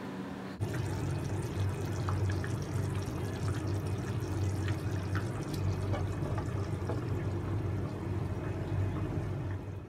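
Chicken in broth simmering in a pan over a gas burner: steady bubbling over a low rumble, with a few light clinks of the glass lid being handled.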